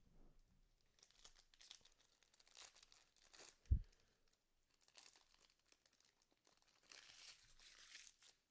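Faint crinkling and tearing of a foil trading-card pack wrapper being opened and handled, in several short spells, with a single low thump about three and a half seconds in.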